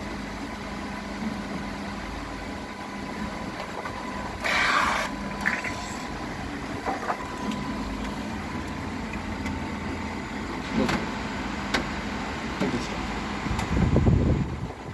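Canon imagePROGRAF TM-5200/TM-5300 large-format printer running as it prints a nozzle check pattern, a steady mechanical hum with a faint constant whine. There is a short hiss about four and a half seconds in, a few light clicks, and a burst of low rumbling near the end.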